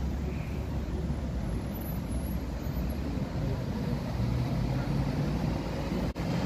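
Steady city road traffic noise, a low rumble of car engines and tyres.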